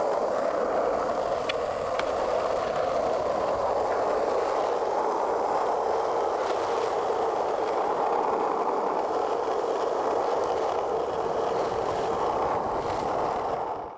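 Skateboard wheels rolling steadily over pavement: an unbroken rolling noise with a few faint clicks.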